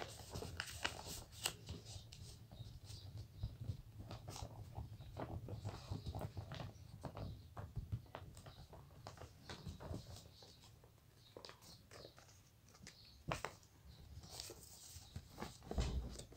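Sheets of paper rustling, crinkling and being creased by hand as they are folded, with many small crackles and clicks. There is a louder dull bump near the end.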